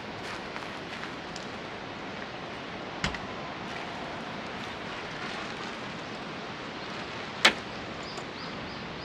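Steady rushing outdoor background noise, broken by a sharp click about three seconds in and a louder sharp click about seven and a half seconds in, with a few faint high chirps near the end.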